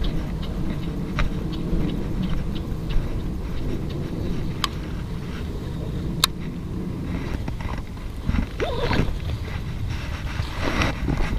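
Wind buffeting the camera microphone: a steady low rumble, broken by two sharp clicks near the middle.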